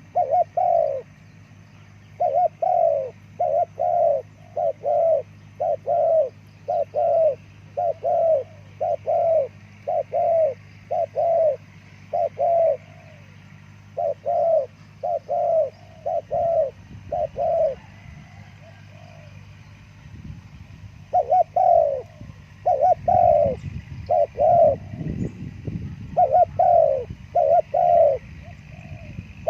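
Spotted dove (terkukur) cooing: a long run of short, loud coos, each bending down in pitch, about two a second, in phrases broken by brief pauses.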